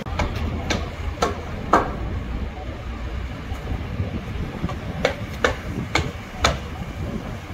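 Hammer blows on timber, about five in quick succession and then four more a few seconds later, as the wooden props for the damaged wall are built. Behind them is a steady low rumble of road traffic.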